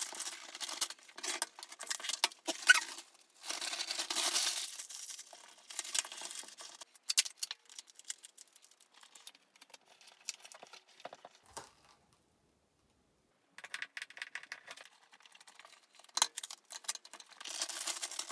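Hands adjusting a tap shoe pinhole camera: irregular rustling, crinkling and tearing with scattered sharp clicks and knocks. The sounds stop completely for about a second and a half past the middle, then resume.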